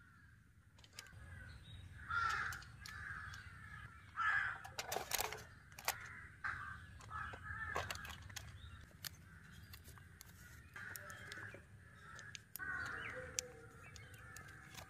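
Crows cawing repeatedly, the loudest calls about two, four and five seconds in, with scattered light clicks from foil food trays being handled.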